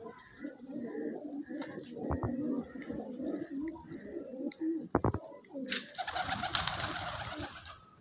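Fancy pigeons cooing in low, wavering calls. About five seconds in there are a couple of sharp knocks, then a burst of rustling noise near the end.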